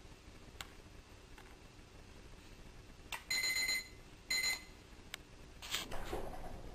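Electronic alarm beeper sounding two high-pitched beeps, each about half a second long and about a second apart. A short shuffling rustle follows near the end.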